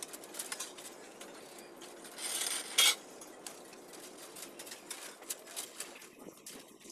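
Light metallic clinks and ticks of steel rebar and stirrups being handled on a beam cage, with a louder rasp and a sharp clank a little under three seconds in.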